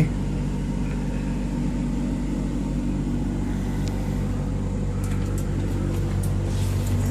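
Truck engine idling steadily: a low, even hum that holds without change.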